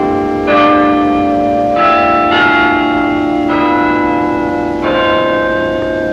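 Bells struck one after another in a slow sequence of different notes, about five strokes, each ringing on beneath the next.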